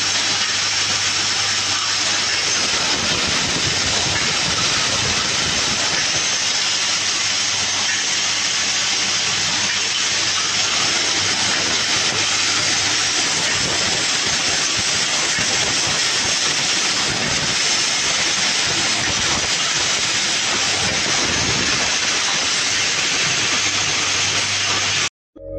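Several gas brazing torch flames hissing steadily, with a faint low hum beneath; the sound cuts off sharply near the end.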